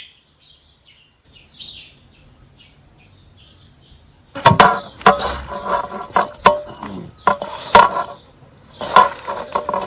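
Small birds chirping faintly. Then, from about four seconds in, hands stir raw tripe and intestines in a metal basin, making repeated irregular knocks and scrapes against it, and the basin rings.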